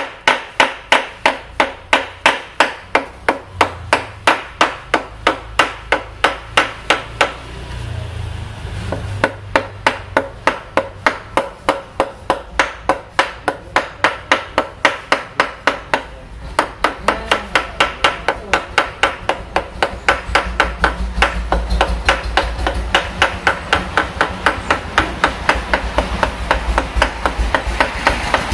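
A mallet repeatedly striking a cylinder liner to seat it in the bore of an Isuzu Panther engine block, in a steady run of sharp knocks at about three to four blows a second, with a short break about halfway. A low rumble sits under the knocks in the second half.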